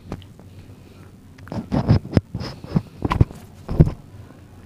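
Clip-on lapel microphone being handled and clipped onto a shirt: a string of knocks, scrapes and rustles made right on the mic, louder and more frequent from about a second and a half in.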